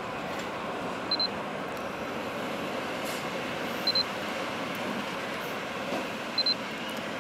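Siemens Vectron electric locomotive rolling slowly in, a steady hum of the locomotive and its wheels on the rails. Three short, high double beeps sound about two and a half seconds apart and are the loudest thing heard.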